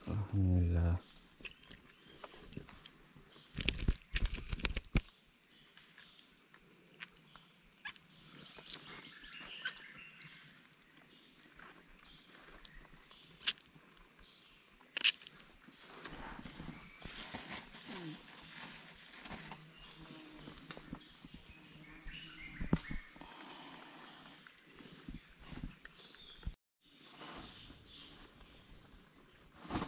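Insects droning in a steady high pitch from the surrounding vegetation, with a cluster of sharp knocks about four seconds in and a few single clicks later. The sound drops out for a moment near the end.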